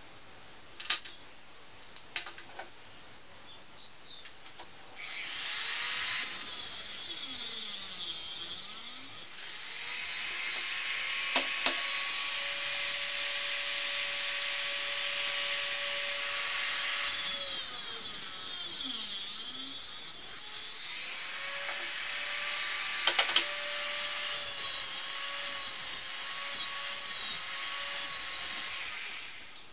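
A small handheld rotary tool spins up about five seconds in and runs with a high-pitched whine as it works a small model part; its pitch dips and recovers twice before it is switched off near the end. A few light clicks of handling come before it starts.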